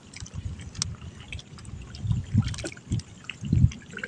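Wet trammel net being hauled up over the side of a small boat, water dripping and splashing back into the river. Several low thumps land in the second half, the loudest near the end.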